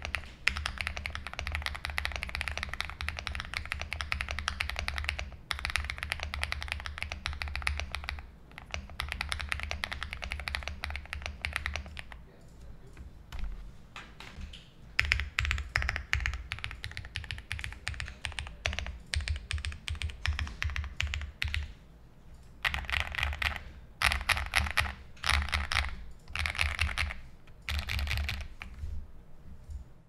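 Furycube F75 mechanical keyboard with a polycarbonate plate and factory-lubricated Matcha Latte V2 switches being typed on. Fast continuous keystrokes run for about twelve seconds, then comes a short quieter lull, then shorter separate runs of keypresses until near the end.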